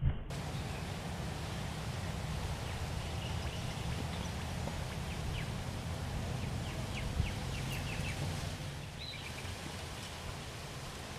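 Outdoor lakeside ambience: a steady low rumble and hiss, with a run of short, high bird chirps in the middle.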